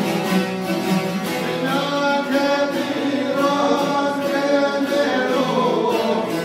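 A group of men singing together over plucked long-necked lutes, in the style of an Albanian rhapsode folk song. At first the strings play alone; the voices come in about two seconds in.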